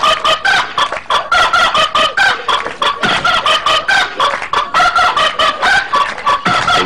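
Chicken clucking in a rapid string of short, clipped clucks, several a second.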